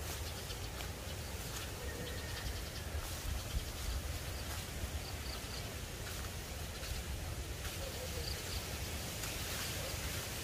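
Outdoor rural ambience: a steady low rumble with a few faint, short high chirps scattered through it.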